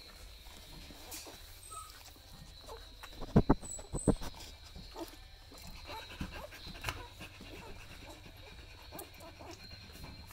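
Newborn Australian Shepherd puppies nursing, making small suckling and squeaking sounds, with two loud thumps a little over three and four seconds in.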